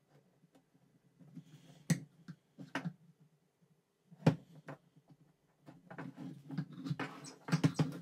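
Plastic clicks and knocks from a seatbelt retractor reel being handled, with a metal pick prying and scraping at its plastic cover. Single sharp clicks come now and then, the loudest a little past four seconds in, then a dense run of clicking and scraping from about six seconds in.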